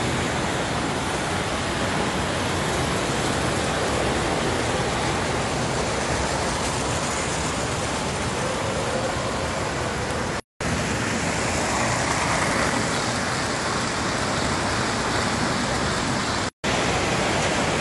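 Several vintage standard gauge electric toy trains running at once on tinplate track, a steady rumbling roar of wheels and motors with no let-up. The sound cuts out abruptly twice for a moment, about ten seconds in and near the end.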